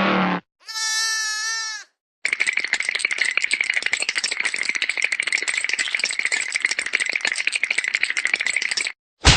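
Comedy sound effects played back to back: a short wavering, pitched call lasting about a second, then after a brief gap a fast, even clicking rattle with a steady high tone running through it, lasting about six and a half seconds. A sharp hit comes right at the end.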